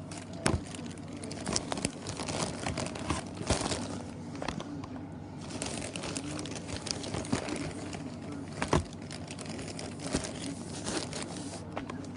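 A packaging wrapper crinkling and tearing as it is handled and ripped open, with many small clicks and two louder knocks, about half a second in and near the end.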